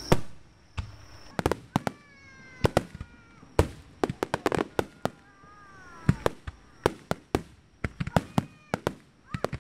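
Aerial firework shells bursting in an irregular series of sharp bangs, several coming close together in quick clusters, the loudest just as it begins.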